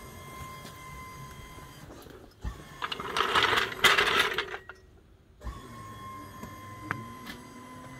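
HWH slide-out system's hydraulic pump running with a steady whine as the slide room extends through a full stroke. About two and a half seconds in, a much louder rough noise lasts for about two seconds.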